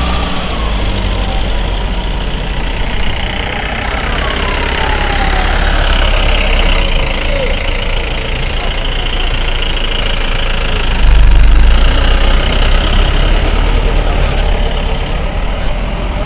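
Motor vehicle engines idling and a pickup truck pulling away through a road checkpoint, over steady street traffic noise. A low rumble swells about eleven seconds in.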